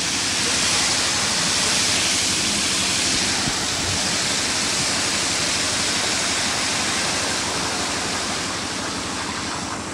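Water jetting from an open outlet of a fire-hose dividing breeching and splashing across the paving: the line is being flushed and bled of air. The rush eases near the end.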